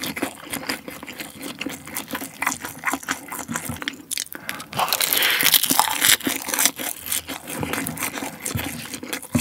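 Close-miked eating sounds: chewing with crunches, clicks and wet mouth sounds, and a spoon scooping mixed chicken rice off the plate. The sounds grow busier and louder about five to six seconds in.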